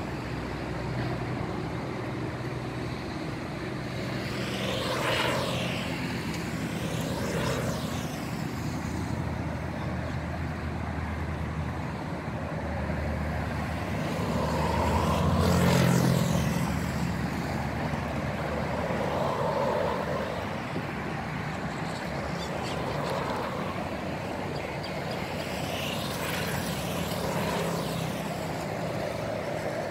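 Road traffic: motor vehicles passing one after another, each swelling and fading away, the loudest about halfway through, over a low engine hum.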